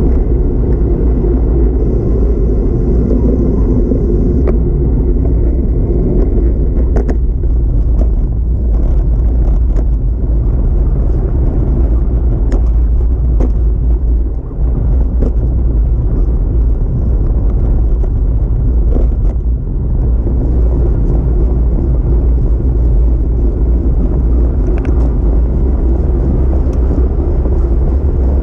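Wind buffeting a bike-mounted camera's microphone, with road rumble from a road bike rolling along pavement: a loud, steady low rumble with a few faint ticks and knocks scattered through it.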